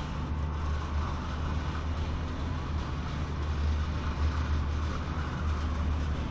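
Steady low rumble of a vehicle running, even throughout.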